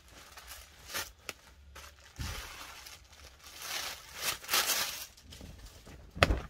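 A folded woollen winter suit fabric rustling and swishing as it is unfolded and shaken out by hand, with a sharp flap just after six seconds in, the loudest sound.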